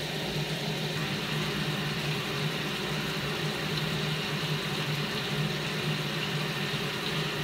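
Steady low machine hum, holding even throughout with no splashes or knocks.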